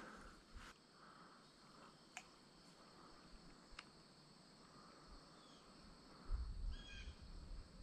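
Near silence outdoors, with faint steady insect chirring from the streamside vegetation, a few faint ticks, and a low rumble near the end.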